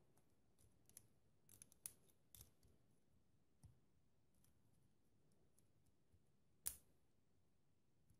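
Faint clicks and taps of plastic building bricks being handled and pressed together, several small ones in the first few seconds, then one sharper snap near the end as a piece clicks into place.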